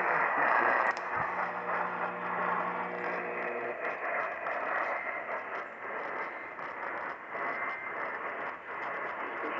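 Hiss and static from a radio receiver on a weak, noisy signal. A low hum with several pitch lines comes in with a click about a second in and stops before the four-second mark.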